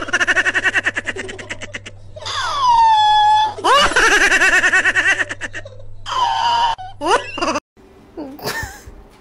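High-pitched giggling laughter: rapid runs of short pulses broken by long squeals that slide down in pitch. It stops near the end, and fainter short calls follow.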